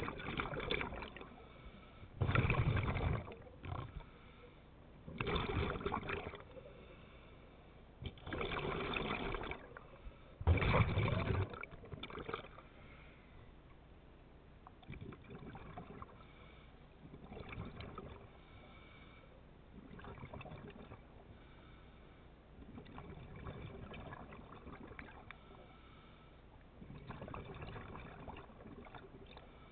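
Scuba regulator underwater: a diver's exhaled bubbles rushing out in bursts of a second or so every couple of seconds, loudest in the first dozen seconds, fainter after.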